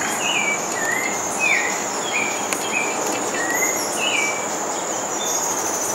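Birds calling over a steady high-pitched insect drone: short whistled notes, some sliding up and some sliding down, about one a second.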